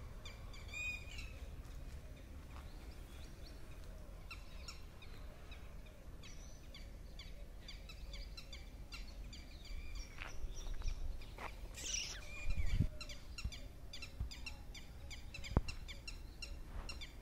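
Small birds chirping and calling, many short repeated chirps with one louder sweeping call about twelve seconds in. A few low thumps sound in the second half.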